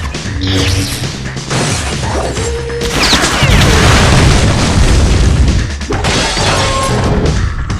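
Background music under dubbed fight sound effects; about three seconds in, a loud explosion boom rumbles on for around three seconds before the music carries on.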